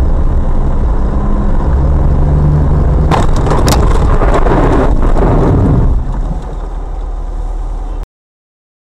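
Car cabin road and engine rumble, broken about three seconds in by a sharp crack and about two seconds of crunching as a car alongside sideswipes it. The noise then drops and cuts off abruptly about eight seconds in.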